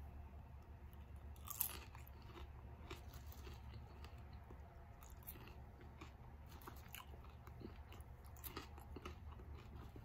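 A person biting and chewing a toasted grasshopper (chapulín): faint, irregular crunches, the loudest about a second and a half in.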